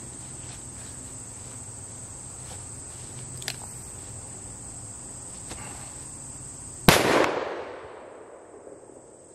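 A single shot from a Smith & Wesson Model 500 revolver in .500 S&W Magnum, fired one-handed, about seven seconds in. Its report trails off over about a second and a half, over a steady high trill of insects.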